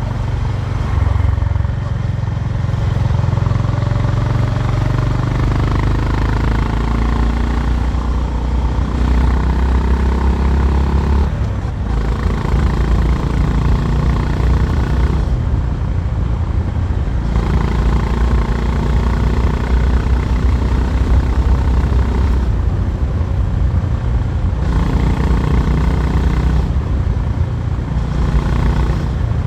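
Honda H'ness CB350's air-cooled single-cylinder engine and exhaust under way, with the engine note rising and falling with throttle. It eases off briefly about eleven seconds in, then pulls again.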